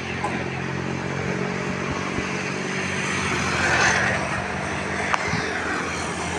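Street traffic: motor vehicles running, with a vehicle swelling louder as it passes about four seconds in, and a sharp click a little after five seconds.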